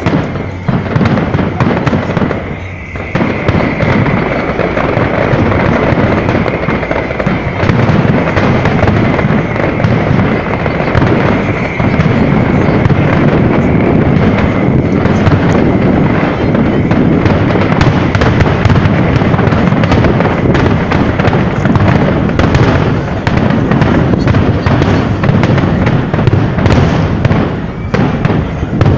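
Fireworks display: a dense, continuous barrage of bangs and crackling shell bursts, with a brief lull about two to three seconds in.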